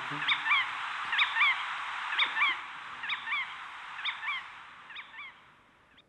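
Field recording of a Jerdon's courser calling, played back through a hall's speakers: a short two-note call repeated about once a second, six times, over steady recording hiss, fading out toward the end.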